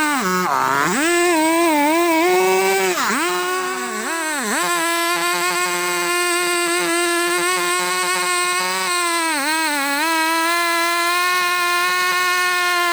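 Two-stroke chainsaw running at high revs while cutting akashmoni wood. Its pitch dips sharply and recovers several times as the chain bites and the engine is loaded.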